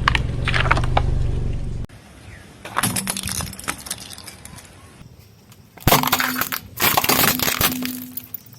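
Brittle objects cracking and crunching as a car tyre rolls over them, in a short burst about three seconds in and a longer, denser run from about six to eight seconds. A steady low engine hum with crackling fills the first two seconds and cuts off abruptly.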